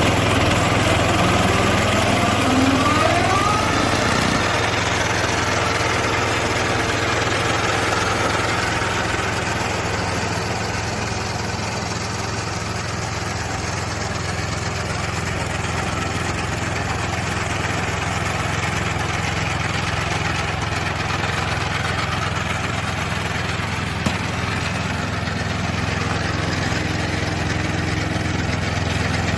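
Riding lawn mower's 16 hp petrol engine running at a steady speed, a continuous even drone.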